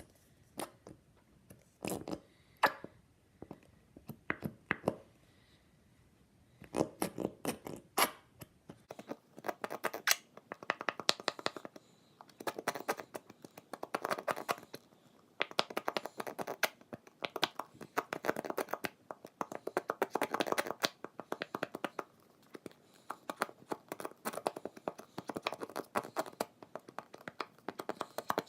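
Slime being mixed, making sticky crackling and clicking. A few separate clicks at first, then from about nine seconds in dense bursts of crackling that come in repeated clusters.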